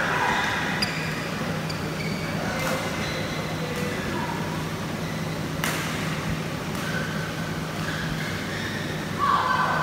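Badminton hall ambience between points: a steady low hum with a few scattered sharp knocks, the sharpest about six seconds in, and faint voices.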